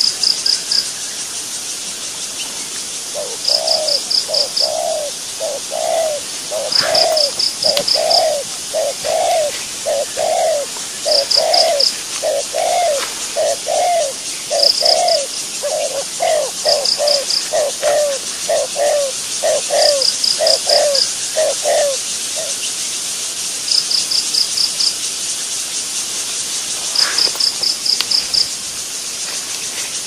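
A bird calling in a long run of quick, repeated low notes, about two a second, starting a few seconds in and stopping about three-quarters of the way through. Short trains of rapid high insect pulses recur every few seconds over a steady high insect hiss.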